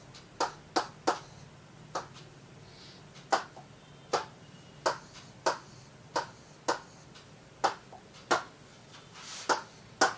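Stylus pen tapping and clicking on the glass of an interactive smart-board display while writing: about a dozen sharp, irregular clicks, roughly one every half second to a second, over a faint steady hum.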